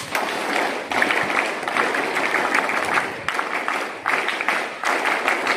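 A large group of scouts clapping together: a dense, steady applause of many hands.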